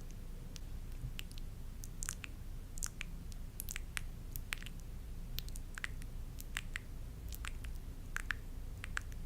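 Close-miked ASMR sounds: many small, irregular clicks and crackles, a few a second, over a steady low hum.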